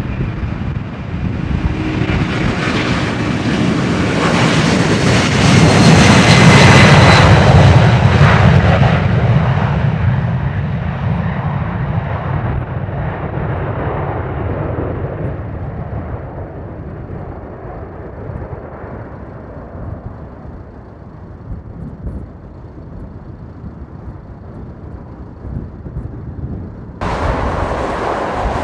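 Jet engines of a Boeing 747 at takeoff power as it rolls past and lifts off, growing loudest about six to eight seconds in, then fading steadily as it climbs away. Near the end the sound cuts suddenly to a different, louder recording.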